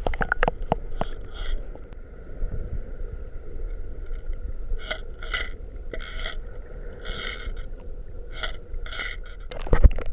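Underwater sound around a rattling squid jig (egi) being worked along the rocks: a steady wash of water with a run of short rattling bursts, about two a second in places, and a loud knock near the end.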